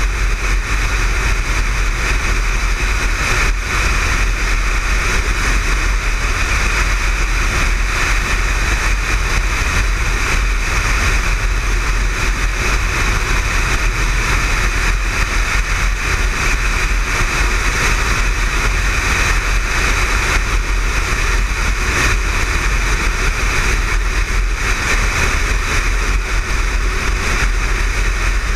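Motorcycle cruising at a steady speed on the highway: wind rushing over the microphone, with the engine and tyre noise beneath. The sound stays unchanged with no gear changes.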